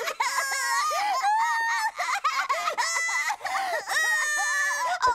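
Two cartoon girls crying loudly together: high-pitched wailing and sobbing with long drawn-out cries.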